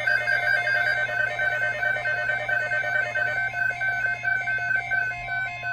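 Rapid electronic beeping at a few steady pitches, several short beeps a second, like an alarm or ringing tone.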